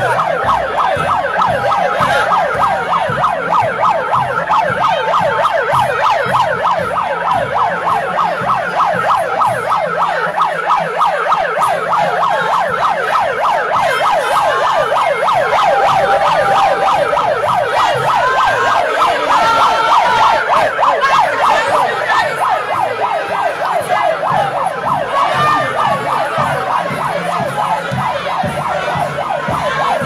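Siren in a fast yelp, its pitch rising and falling several times a second without a break.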